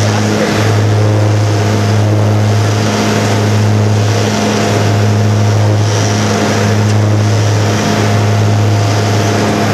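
Cabin noise of a small propeller airplane in flight: a loud, steady, low engine-and-propeller drone that pulses slowly and evenly, about every second and a half.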